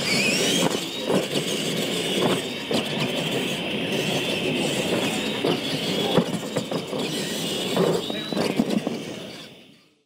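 Electric R/C monster truck whining as it drives on dirt. The motor-and-gear whine rises in pitch shortly after the start and again near the end, with scattered knocks and scuffs, and the sound fades out in the last second.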